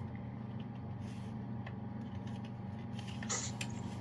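Plastic smoke-alarm housing being handled as its hinged cover is pried at: a few faint clicks and one short scrape about three seconds in, over a steady low hum.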